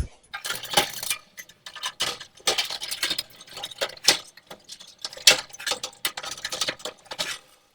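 Irregular light metallic clicks, clinks and rattles as a new dryer heating element is fitted into its sheet-metal heater housing.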